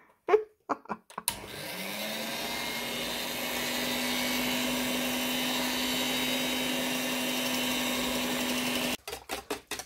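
Electric hand mixer with twin beaters running in a stainless steel bowl of liquid egg-liqueur mixture. A few clicks come first; about a second in the motor spins up with a rising hum, then runs steadily and stops about nine seconds in, followed by a quick series of clicks.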